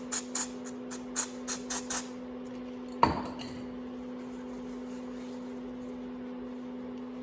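Quick short squirts of spray cleaner into the motorcycle's clutch cable entry, about seven in the first two seconds, then a single sharp clink about three seconds in as something hard is set down. A steady low hum runs underneath.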